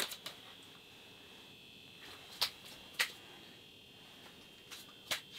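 A freshly caught crappie being unhooked and handled: a few sharp clicks and taps, two near the start, two in the middle and one near the end, over a faint steady high-pitched whine.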